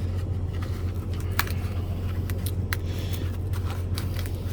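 A few sharp clicks and crinkles of a ration pouch and its packaging being handled, over a steady low hum.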